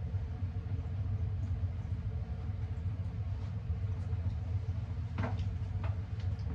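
A steady low hum with a faint steady tone above it, with a couple of light knocks or rustles about five seconds in.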